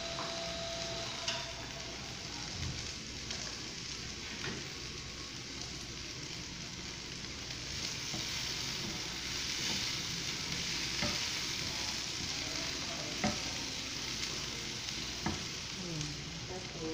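Sliced onion and green bell pepper sizzling in a nonstick frying pan while a spatula stirs them, with a few short clicks of the spatula against the pan. The sizzle grows fuller about halfway through as the vegetables are tossed.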